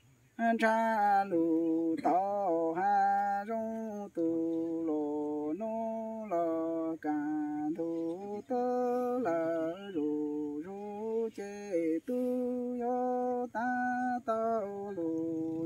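A single voice chanting Hmong sung poetry (lus txiaj), in long held, level notes with slides between them and brief breaks for breath, starting about half a second in.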